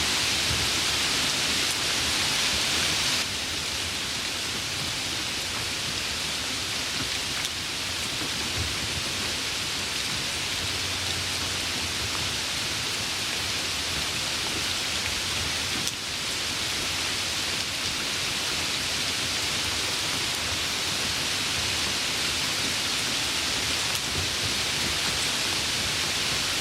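Steady rain falling, an even hiss that drops slightly in level about three seconds in.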